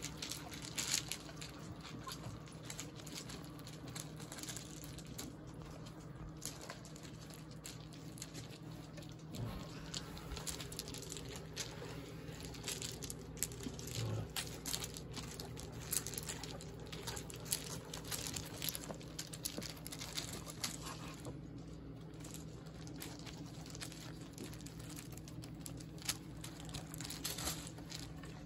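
Paws scuffling on loose river-pebble gravel as a big dog and a puppy play, the stones clicking and crunching irregularly, over a steady low hum.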